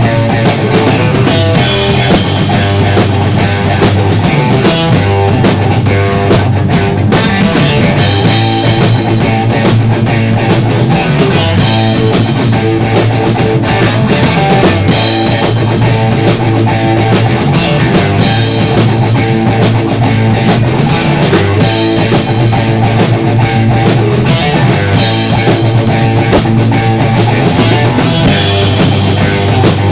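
Loud rock music with a drum kit, bass and guitar playing a steady beat.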